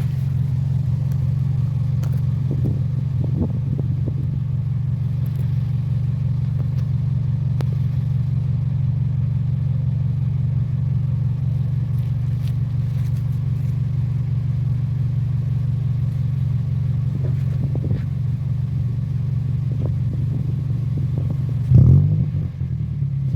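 Toyota Celica T23's 1.8-litre four-cylinder engine idling steadily through an aftermarket Turboworks muffler, with one short rev near the end.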